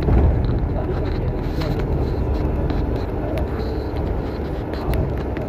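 City bus in motion, heard from inside the cabin: a steady low rumble of engine and road noise, with a few small clicks and rattles.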